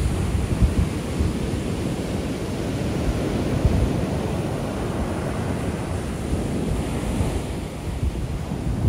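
Ocean shore break: small waves breaking and foam washing up the beach in a steady rush, with wind buffeting the microphone.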